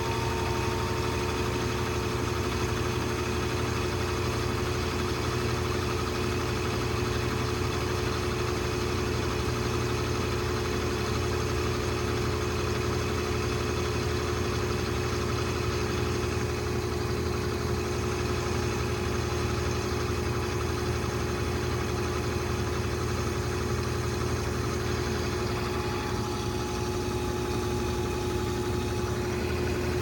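2012 LG WaveForce top-load washing machine spinning at full speed: a steady hum with several constant whining tones from the motor and drum.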